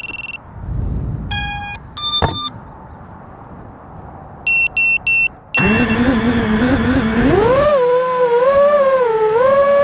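Racing drone's electronic beep tones: two single beeps, then three short beeps, like the start-up and arming signals of a quadcopter. Its brushless motors then spin up with a whine that climbs in pitch and wavers up and down as the throttle changes.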